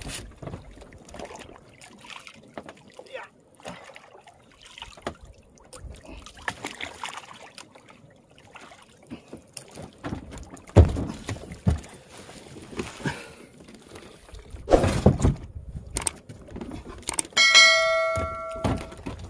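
Knocks and thuds of a freshly caught tanigue being hauled over the gunwale into a small outrigger boat, with two heavy thuds about halfway through and again a few seconds later. Near the end a bell chime sound effect rings for about a second.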